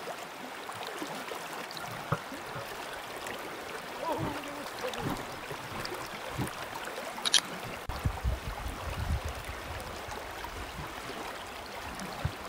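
Steady rush of a limestone spring creek's current flowing around a wading angler. A few small handling knocks are heard, with a sharp click about seven seconds in and a low rumble shortly after.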